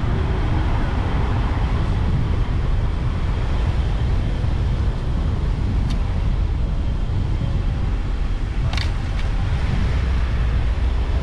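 Car driving slowly along a lane: a steady rumble of engine and tyres, with a brief click about six seconds in and a short rattle near nine seconds.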